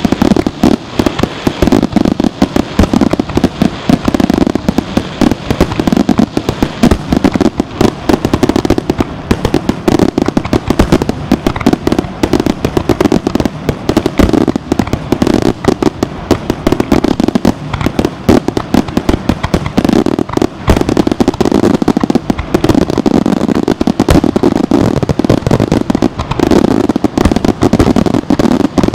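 Fireworks display: a loud, continuous barrage of aerial shell bursts and crackle, many bangs a second without a break.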